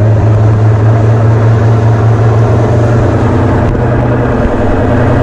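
Ferry under way: a steady low engine hum with a rushing noise over it. It cuts off suddenly near the end.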